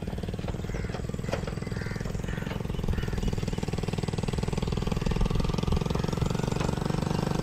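A motor vehicle's engine running steadily with a fast, even beat, getting gradually louder as it comes closer.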